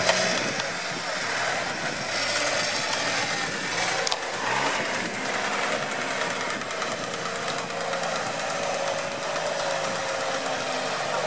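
Engine of a modified UAZ off-road truck on oversized tractor-style tyres running steadily as it drives slowly across a grassy field.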